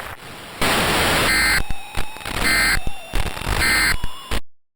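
Loud static hiss broken by three short electronic data bursts about a second apart, in the pattern of an Emergency Alert System end-of-message signal. The sound then cuts off abruptly near the end.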